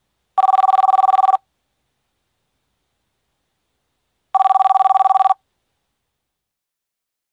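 A telephone ringing: two rings about four seconds apart, each a one-second fast trill on two tones.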